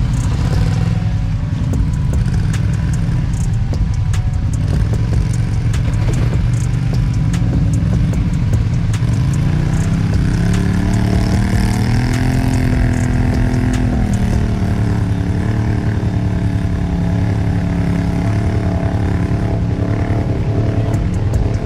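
ATV engine running as the four-wheeler crawls along a muddy trail. The engine revs up about ten seconds in, holds higher for a couple of seconds, then eases back. Scattered ticks and clatter run over it.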